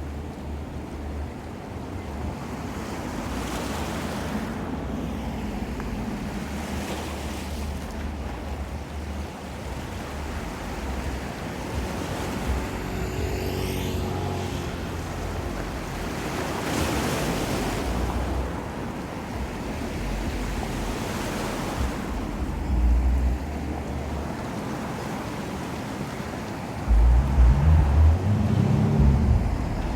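Ocean surf washing in, swelling and easing as waves break, with wind buffeting the microphone in heavy low rumbles, strongest near the end.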